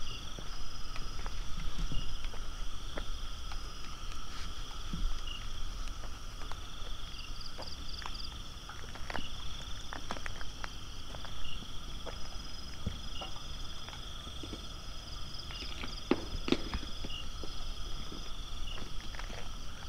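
Night-time chorus of calling insects, a steady high chirring with repeated short chirps. Irregular footsteps and small knocks on a hard floor sound over it.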